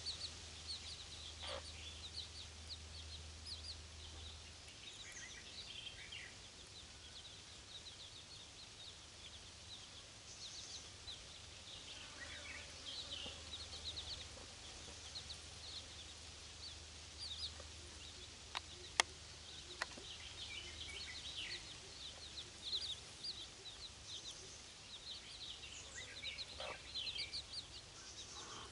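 Chicks peeping continuously in rapid high cheeps, with a few longer falling peeps and a hen clucking softly now and then. Two or three sharp clicks come about two-thirds of the way in.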